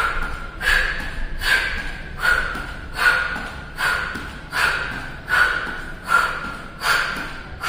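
A woman breathing out hard in a steady rhythm, about ten sharp exhalations, one every 0.8 seconds or so. Each one comes with a knee lift in a high-knee twist exercise with a dumbbell.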